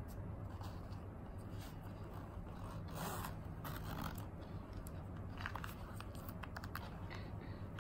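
Handling of a Bellroy leather zip-around wallet and its packaging: a rustle about three seconds in, then the zip drawn open around the wallet, a run of small quick clicks from its metal teeth, over a low steady hum.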